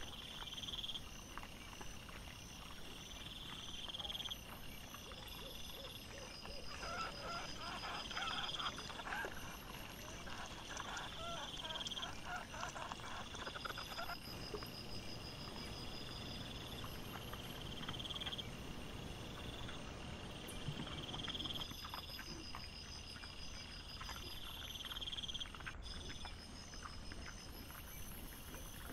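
Sped-up night audio of wild boars foraging, with scratchy rustling and crunching that is busiest in the first half. Through it, an insect chirps in a high pulse repeating about every two seconds.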